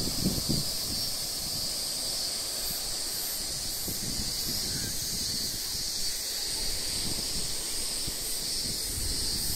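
Wind buffeting the microphone in uneven low rumbles under a steady high-pitched hiss.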